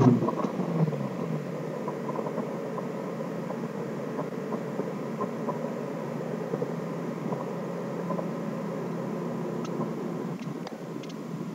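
Turbocharged Honda S2000 AP1's F20C four-cylinder engine coming down off a rev with the throttle shut and fuel cut, its pitch falling in the first second, then idling steadily at about 1,000 rpm.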